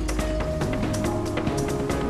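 Instrumental theme music for a TV weather forecast opening, with a steady beat and held notes.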